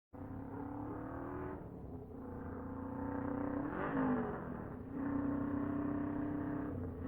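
Motorcycle engine running and revving. Its pitch and loudness shift a few times, with a dip around two seconds in and another just before five seconds, then it holds steadier and louder.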